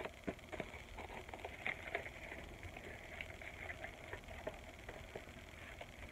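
Cardboard puppet pieces handled on a table: faint rustling with scattered light clicks as a metal brad is pushed through and fastened.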